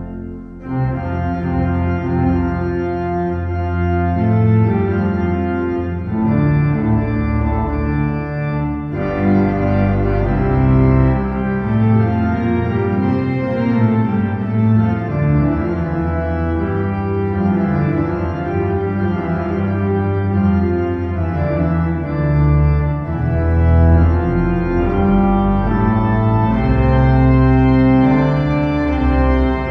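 Background music of sustained keyboard chords that change every second or two.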